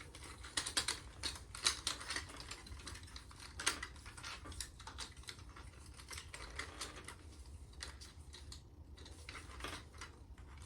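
Plastic action-figure parts clicking and rattling as they are handled and moved, with many short irregular clicks, more of them in the first few seconds.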